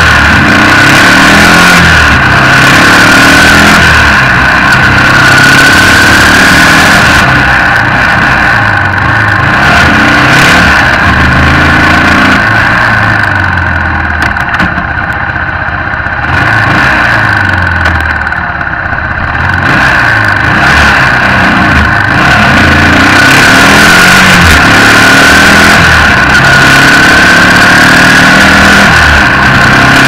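Yamaha XT225's single-cylinder four-stroke engine running at road speed, its pitch climbing and dropping in steps through gear changes, under loud wind rush on a camera mounted by the front wheel. It is quieter for a few seconds about halfway through.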